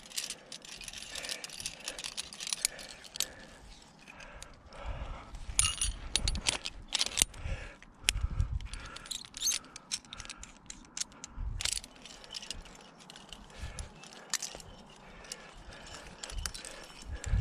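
Aluminium climbing carabiners and quickdraws clinking and clicking against each other and a bolt anchor as the climber clips in, with the nylon rope being handled. Many sharp metal clicks come at irregular moments, mixed with low thumps.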